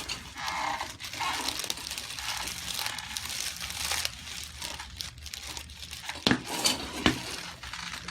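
Crinkling, rustling handling noise on a chiropractic treatment table as the patient is positioned, followed near the end by three sharp clicks in quick succession.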